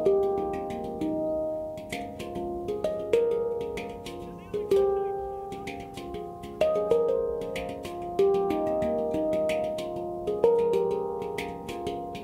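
Handpan tuned to F minor, played by hand: a melody of struck steel notes, each ringing and fading, with a strong accented note every second or two among quicker soft taps.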